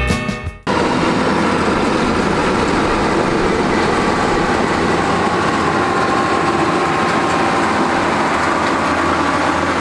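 Heavy earthmoving machine's diesel engine running steadily, loud and even throughout. A music track fades out just before it.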